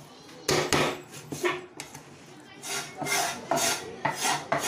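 A cleaver chopping raw chicken on a wooden chopping board, with a few sharp chops in the first second and a half. Then comes a regular run of rasping blade strokes, about three a second.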